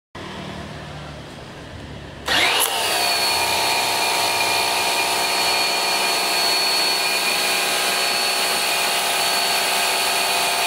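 Bosch EasyAquatak 110 electric pressure washer. About two seconds in, its motor starts with a quick rising whine, then runs steadily with a high whine over the hiss of the water jet.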